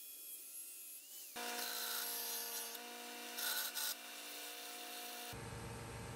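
Power tools cutting and machining metal parts: a motor running steadily under a rubbing, scraping cutting noise. The sound changes abruptly about a second in and again near the end.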